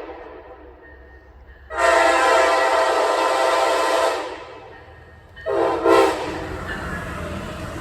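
Locomotive multi-chime air horn sounding: one long blast about two seconds in and a shorter blast about five and a half seconds in, with the low rumble of the approaching train growing after it.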